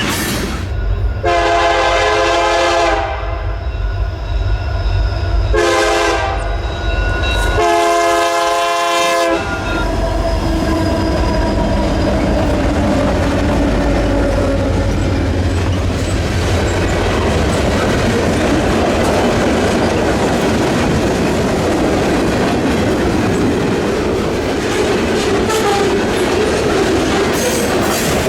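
Diesel freight train sounding its multi-chime air horn in three blasts, long, short, long, then passing with a steady low locomotive rumble and the rolling clatter of wheels on rail.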